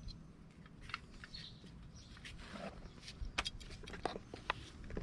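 Scattered light clicks and clinks of small metal drum-brake parts, shoes, springs and clips, being handled and fitted, growing busier from about three seconds in.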